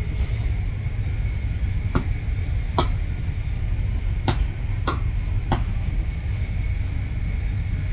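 Inside a moving passenger train carriage: the steady low rumble of the train running at speed, with a faint steady high whine. Five short sharp clicks or knocks are spread through it.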